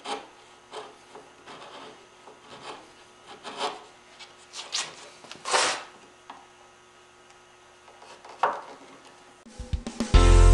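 Hand chisel paring curly maple dovetail pins: a series of short scraping strokes with pauses between, one longer stroke about five and a half seconds in. Music comes in near the end, louder than the paring.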